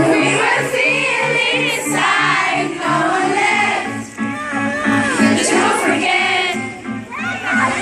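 Live pop music from a band, with a steady pulsing bass and singing, and many young voices singing along.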